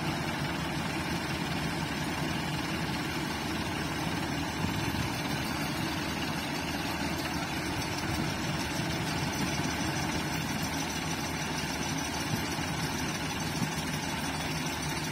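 Ford farm tractors' diesel engines idling steadily.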